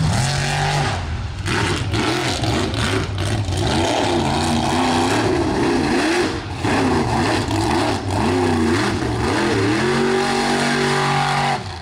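Mega mud truck engines revving hard during a race on a muddy track, the engine pitch rising and falling again and again over a steadier low drone.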